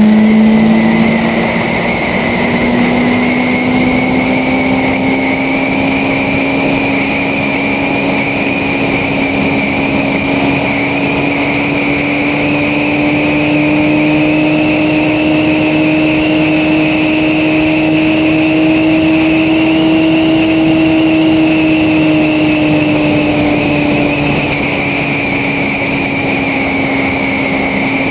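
Motorcycle engine running steadily on the road. Its note climbs slowly for about twenty seconds, then eases off a little a few seconds before the end.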